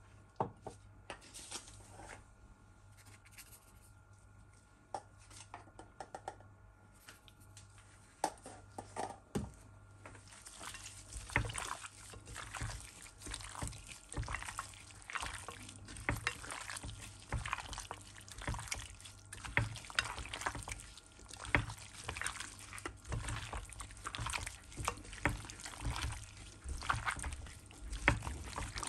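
Water splashing and dripping as something is handled in it, with scattered small knocks; sparse at first, then busy and continuous from about a third of the way in.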